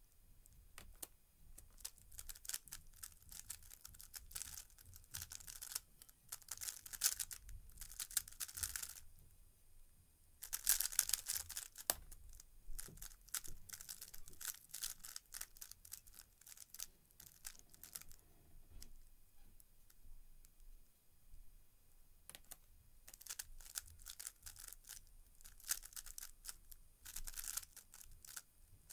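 A 3x3 speedcube being turned fast: runs of rapid plastic clicking and clacking from its layers, in bursts of a few seconds with short pauses between them.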